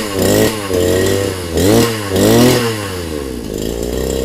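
Small petrol engine of a portable water pump being revved up and down several times, then settling to a steady run about three seconds in.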